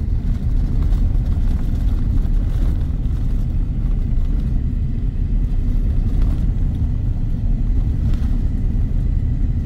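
Steady low rumble of a car travelling at highway speed: tyre and engine noise from the moving vehicle.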